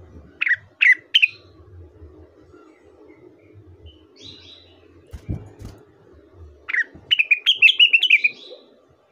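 Blue-winged leafbird (rengganis / cucak wilis) singing: three quick down-slurred whistles near the start, then, after a pause, a fast chattering run of chirps near the end. A couple of low thumps sound midway.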